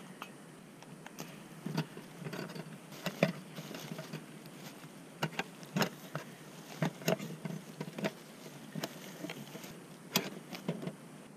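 Irregular clicks, knocks and light rattles of camp cooking gear being handled: a backpacking stove set on its gas canister, and a nested camping pot and frying pan taken out of their storage bag and pulled apart, with some rustling of the bag.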